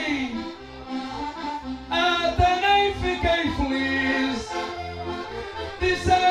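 Two diatonic button accordions playing the accompaniment for a Beira Alta-style desgarrada: sustained chords over a steady, rhythmic bass. The playing drops quieter about half a second in and comes back fuller about two seconds in.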